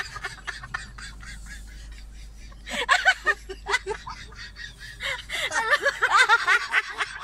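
A person laughing in a high-pitched giggle, in two spells: one about three seconds in and a longer one from about five seconds in.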